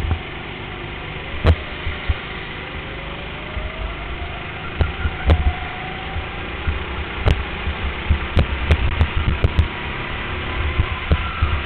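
Go-kart running hard on an indoor track, heard from a camera mounted on the kart: a steady low rumble with scattered sharp knocks, and a faint tone that rises in pitch about three to six seconds in.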